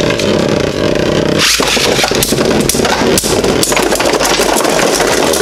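Two Beyblade Burst GT tops, Heaven Pegasus 10 Proof Low and Slash Dragon, spinning and clashing in a plastic stadium: a loud, continuous whirring scrape of their tips on the stadium floor, dense with sharp clacks as they collide. Slash Dragon bursts apart partway through, while Heaven Pegasus keeps spinning.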